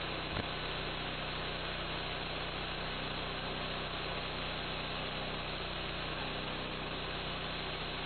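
The homemade band sawmill's 11-horsepower gas engine running steadily at a constant speed, with one small knock about half a second in.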